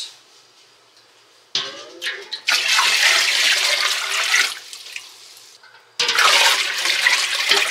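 Water gushing and splashing into a canning pot in two loud spells. The first starts about a second and a half in and eases off about halfway through; the second runs through the last couple of seconds. The pot is being part-filled so that water can be added to the large water-bath canner.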